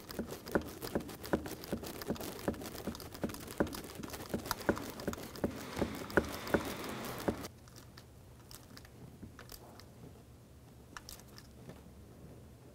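Hand ratchet on a 10 mm socket clicking as the VVT solenoid clamp bolt is snugged down: a quick, even run of clicks that stops about seven and a half seconds in, after which only a few faint ticks remain.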